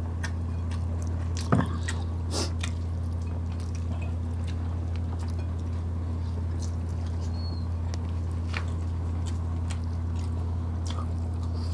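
Close-miked eating by hand: wet chewing, mouth clicks and small squishy sounds from two people eating grilled chicken and fried spring rolls, over a steady low hum. One sharp knock about a second and a half in.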